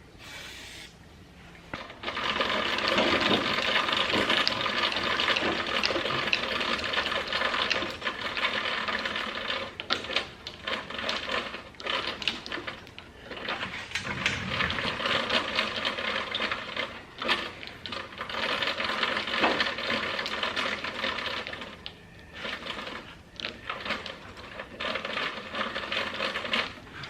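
Stiff, freshly WD-40'd adjustment mechanism on an old woodworking machine being turned by hand, with rapid grinding and clicking of its gears or screw. It starts about two seconds in and runs with brief pauses. The mechanism is hard to turn but working.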